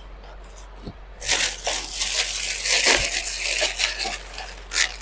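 Crinkling and light rattling of jewellery packaging being handled: a dense crackle starting just over a second in and lasting about three and a half seconds.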